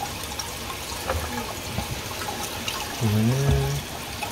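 Water pouring steadily down an opened PVC sink drain pipe, draining freely now that the clog has been cleared. A man's voice is heard briefly about three seconds in.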